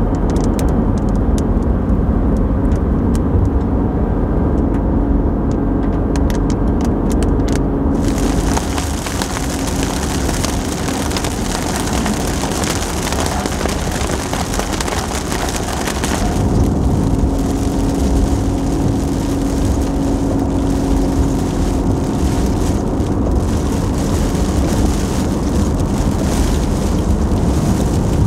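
Car driving on a wet road, heard from inside the cabin: a steady low road and engine rumble with a constant hum. A hiss of rain and wet tyres comes in sharply about a third of the way through and drops back about halfway.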